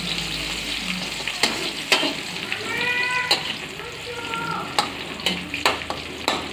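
Sliced shallots sizzling in hot cooking oil as they are sautéed, with the spatula knocking and scraping against the pan several times while stirring. Two short falling high squeaks sound in the middle.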